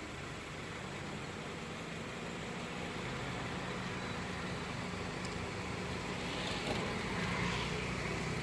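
Steady hum of an idling car engine and its fan, heard from inside the car, with a brief hiss about two-thirds of the way through.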